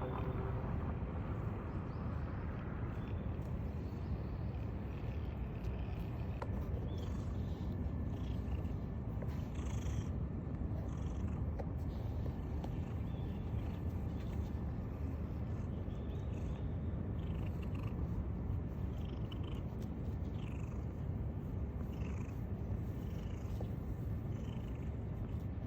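A cat purring steadily, close to the microphone.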